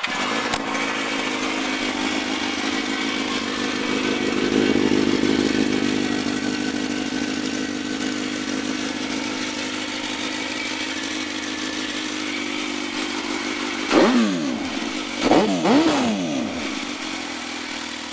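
Suzuki GSX-R1000 inline-four sport bike engine idling through a Force titanium slip-on exhaust, just after starting. The idle swells a little a few seconds in and settles, then the throttle is blipped, one quick rev followed by two more close together near the end.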